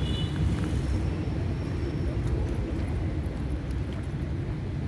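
Low, steady rumble of city traffic.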